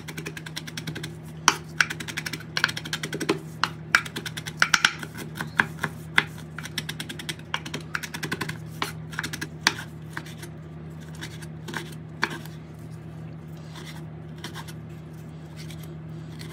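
Knife chopping on a cutting board in quick, irregular strokes that thin out after about ten seconds, over a steady low hum.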